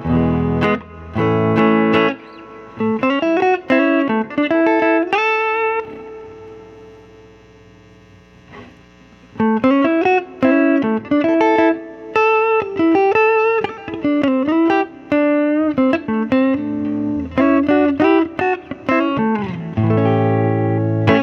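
Electric guitar played through the clean-boost side of a Thorpy FX The Dane pedal, its fat (bass) knob at noon. Struck chords open and close the passage, with single-note licks and string bends between them, and a held note rings out for a few seconds about a third of the way in.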